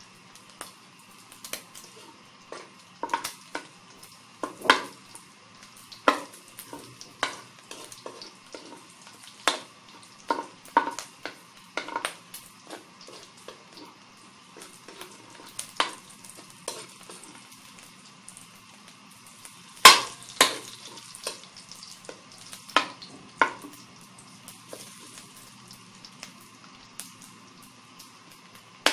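A metal spatula scrapes and clacks against an aluminium wok while pork pieces fry with a faint sizzle. The strikes come irregularly, each sharp and ringing briefly, and the loudest falls about twenty seconds in.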